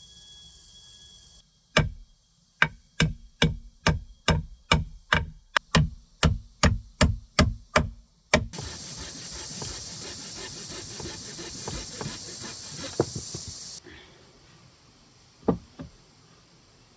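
Wood being struck hard with a tool, about fifteen sharp knocks at a steady pace of roughly two and a half a second. Then a steady hissing noise for about five seconds, with a few scattered knocks.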